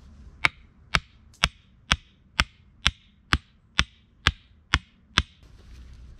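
A hatchet striking the top of a wooden stake eleven times, about two blows a second, driving the stake into the ground. Each blow is a sharp knock with a brief ring.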